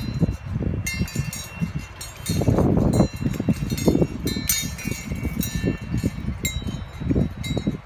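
Wind chime of hanging metal fishing lures clinking in the breeze: scattered sharp metallic clinks, each ringing briefly. Gusts of wind buffet the microphone as a loud uneven rumble underneath.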